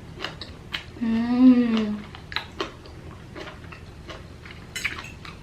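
A woman's appreciative 'mmm' while tasting food, about a second long, rising then falling in pitch, with scattered light clicks and taps around it.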